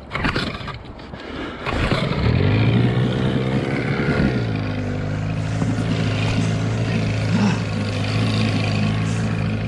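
Johnson outboard motor pull-started, catching about two seconds in and revving up, then settling about four seconds in to a steady running note.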